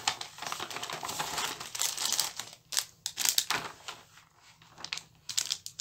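Clear plastic packaging crinkling as it is handled. The rustling is dense for about the first two and a half seconds, then breaks into scattered separate crackles.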